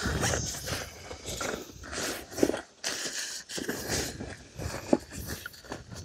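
Camping gear being handled at a backpack: irregular rustling and crinkling of nylon and bags with short knocks and clicks, the sharpest about two and a half seconds in and again near five seconds, and a brief lull around three seconds. Wind rumbles on the microphone in the first part.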